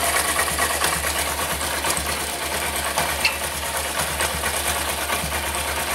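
Honda SP 125's single-cylinder engine running steadily while driving the chain, with only light scattered ticks. The chain runs without its earlier knocking: the chain noise problem is fixed.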